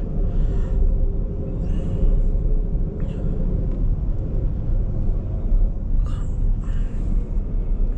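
Steady low rumble of a Jeep's engine and tyres on the road, heard from inside the cab while driving.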